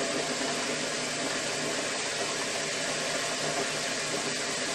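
Craftsman 12-inch metal lathe, built by Atlas, running: its electric motor, drive belts and countershaft spin steadily with an even mechanical whir. The countershaft turns smoothly in new oil-impregnated bronze bushings, the sign that the bearing replacement has cured the heavy wear.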